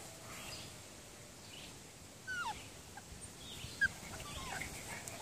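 Twelve-week-old puppies giving a few faint, short yips and whines: a falling whine about two seconds in and a short yip near four seconds.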